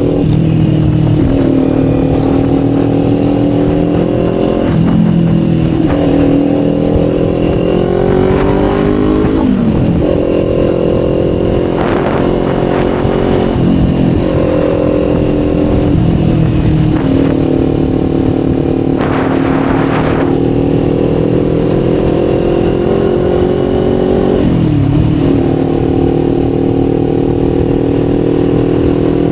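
Kawasaki Z400 parallel-twin engine and exhaust heard from the rider's seat while riding. The engine note climbs and then drops several times as the rider works the throttle and changes gear.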